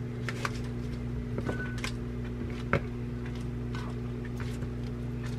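Microwave oven running with a steady low hum, while crisp lettuce leaves rustle and snap as they are torn by hand and dropped into a bowl.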